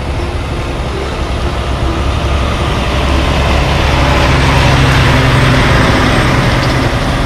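Diesel semi-truck pulling an aluminium end-dump trailer, driving slowly close by. Its heavy engine runs steadily, and the engine and tyre noise grows louder as it draws level and passes, loudest about five seconds in.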